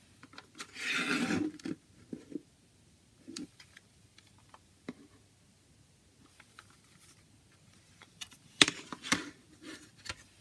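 Plastic CD jewel case being handled: a loud rubbing scrape about a second in as it is picked up off the table, light clicks and taps as it is turned over, then a cluster of sharp plastic clicks near the end as the hinged case is opened.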